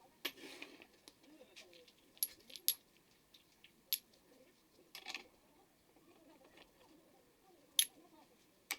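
Irregular sharp metallic clicks and short clinks, about eight of them, from small metal parts and tools being handled and set down on a workbench. The loudest come near the middle and shortly before the end.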